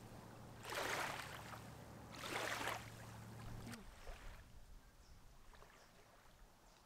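Small waves lapping onto a sandy lakeshore, washing in twice about a second and a half apart.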